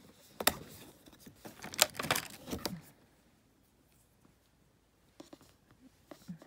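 Handling noise as a small vinyl mini figure is fetched: a couple of seconds of rustling and sharp clicks, then a pause, then a few light taps as it is set down.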